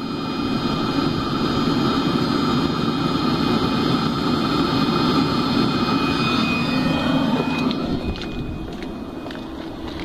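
Webasto diesel heater running at full load with the cabin blower fan at full speed: a steady rush of air and burner noise with a high, even fan whine. It eases off and changes character about three-quarters of the way through.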